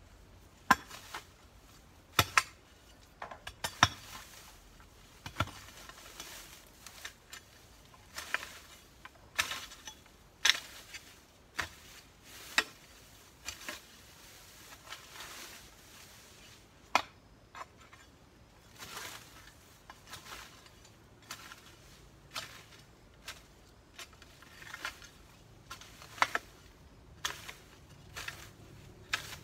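A garden hoe chopping and scraping into weedy soil: irregular sharp strikes every second or two, with rasping scrapes between them.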